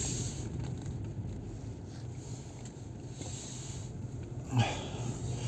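Steady low drone of a van's engine heard from inside the cab, with a brief, louder pitched sound about four and a half seconds in.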